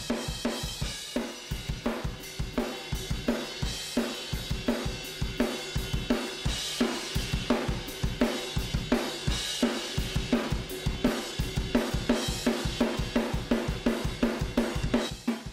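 Recorded heavy metal drum kit playing back, a fast steady kick drum under snare and cymbals, with the stereo room mics heavily squeezed by a Tegeler Vari Tube Compressor set to fast attack and fast release.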